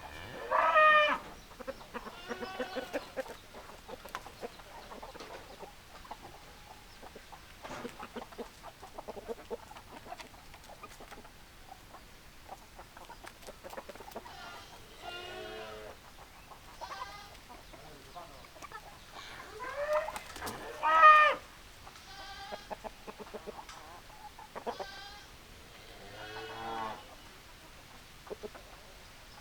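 Chickens clucking and calling in short bursts, with two louder, longer calls: one about a second in and one around twenty seconds in.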